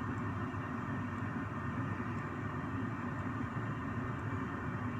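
Steady low hum and hiss of background room noise, with a faint tick about once a second.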